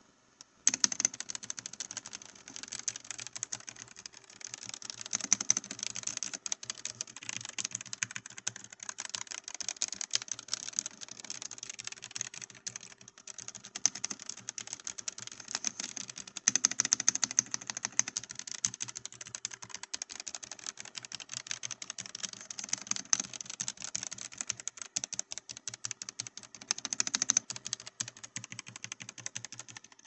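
Continuous fast typing on a Royal Kludge N80 low-profile mechanical keyboard: a dense stream of key clicks that starts about a second in, with brief pauses here and there.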